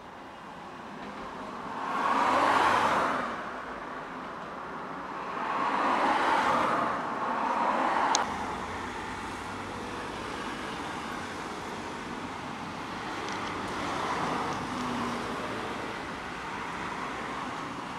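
Road traffic: cars passing one after another, each swelling up and fading away over a second or two, three times, over a steady traffic hum. A single sharp tick about eight seconds in.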